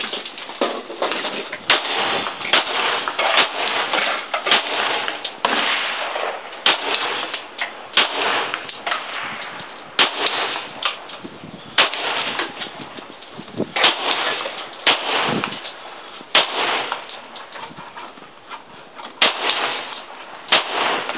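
Semi-automatic pistol being fired, many single shots at irregular intervals of about one to two seconds, some sharper and louder than others, with a steady hiss between them.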